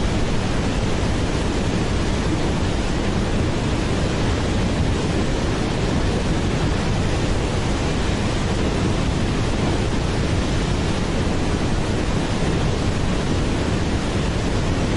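Waterfall: a steady, unbroken rush of falling water, even and fairly loud.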